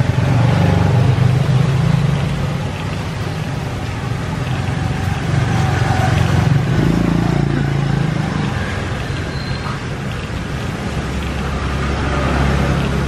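Panasonic inverter refrigerator compressor running and puffing ("phì phè") as it pumps air out of the fridge's sealed system to pull a vacuum. A steady low rumble, mixed with street traffic, runs under it.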